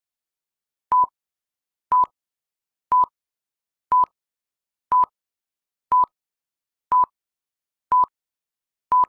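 Short electronic beeps of one steady mid-pitched tone, one each second, about nine in a row, with dead silence between, like a countdown timer.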